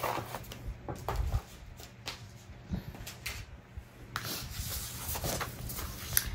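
Paper being handled and rubbed on a tabletop: rustling with a few light taps and knocks, the rustle strongest about four seconds in.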